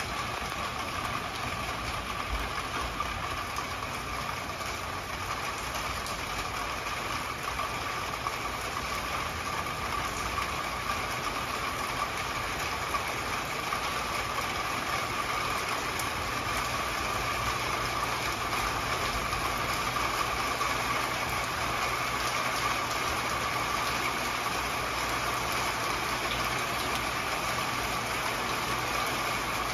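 Steady rain falling on a backyard pool and patio, slowly getting louder, over a faint steady low hum.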